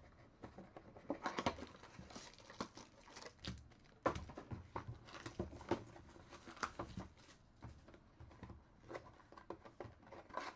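Foil-wrapped trading card packs being handled and stacked: irregular crinkling and rustling with light taps and clicks, the sharpest click about four seconds in.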